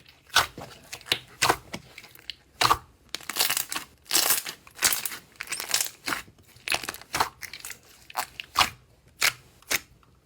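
Slime being squeezed and pressed by hand: a string of sharp crackling pops, about a dozen in all, with longer crinkling stretches through the middle.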